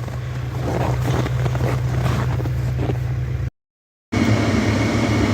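Tractor engine running steadily, heard from inside the cab as a low hum with a rushing noise over it. The sound cuts out completely for about half a second a little past the middle, then resumes.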